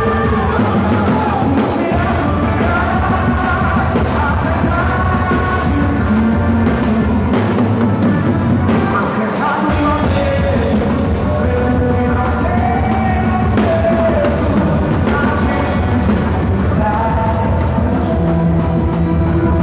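Loud music with a singing voice over a steady drum beat.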